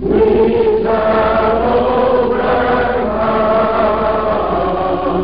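A group of voices singing slowly in long held notes, over a low steady hum.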